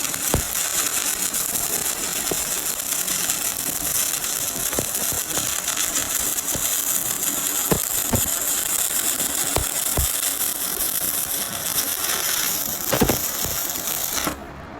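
Stick (SMAW) welding arc burning a 7016 low-hydrogen electrode, a steady crackling sizzle with occasional sharp pops. The arc is broken off suddenly near the end.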